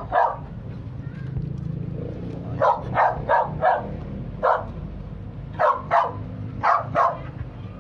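A dog barking repeatedly in quick bursts: a run of four, then one, then two pairs, about ten barks in all, over a steady low rumble.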